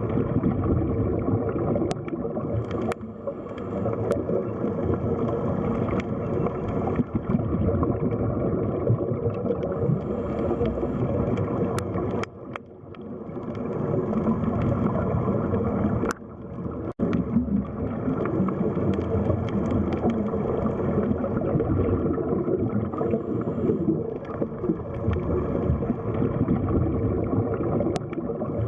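Underwater sea ambience: a steady, muffled rush of water with little high sound. It dips briefly twice, about twelve and sixteen seconds in.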